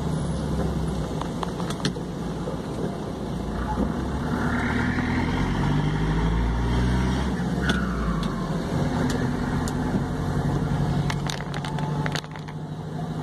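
Road vehicle's engine and road noise heard from inside the cab while driving. The engine revs up as it accelerates about four seconds in and eases off a few seconds later, and a few sharp clicks come near the end.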